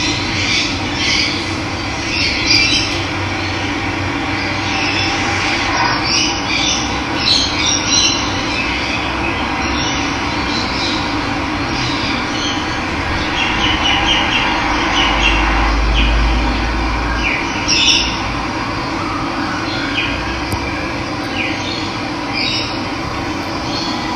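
Steady rush of running water, with birds chirping over it in short calls scattered throughout.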